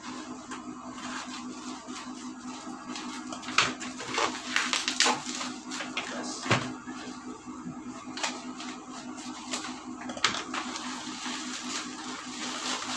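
Plastic shipping pouch being snipped open with scissors, then crinkling and rustling as the boxed item is pulled out of its plastic wrap, with irregular sharp handling clicks. A steady low hum runs underneath.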